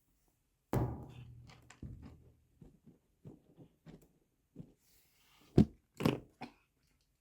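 A cat getting at and eating its food: irregular knocks, clicks and crunches, with the two loudest sharp knocks about five and a half and six seconds in.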